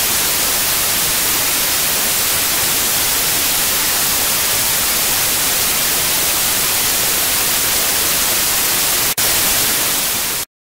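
Loud, steady white-noise static hiss, broken for an instant about nine seconds in, cutting off suddenly near the end.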